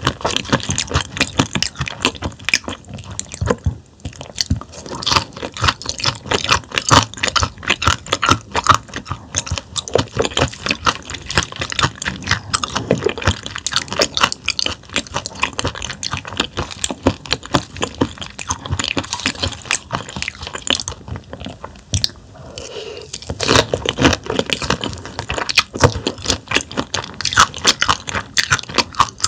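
Close-miked chewing of thin-sliced bone-in damselfish sashimi, the tough little bones crunching and crackling between the teeth in a dense run of crisp clicks, with a short pause about three quarters of the way through.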